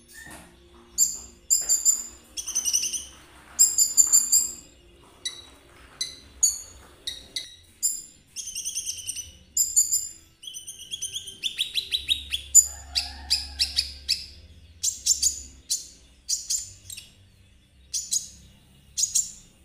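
Konin bird singing in short phrases of sharp, high chirps and quick trills, with brief pauses between them.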